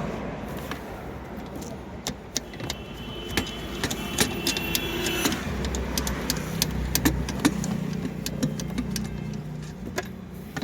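Metal clicks and clinks of tools and parts being handled while the gear-lever assembly is unbolted and worked loose, with a brief faint ringing partway through, over a steady low hum.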